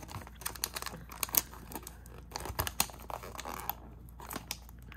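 Cardboard Pokémon trading-card mystery box being handled and opened by hand: irregular crinkling of card and foil pack wrappers with many small, uneven clicks.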